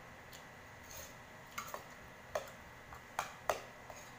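Close-up eating sounds: a handful of sharp crunches and mouth clicks as crispy fried chicken is bitten and chewed. The loudest come in the second half.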